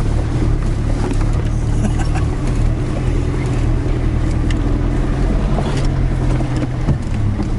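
Toyota Hilux engine running at a steady pitch as the truck drives over rough off-road ground, with a few short knocks from the vehicle.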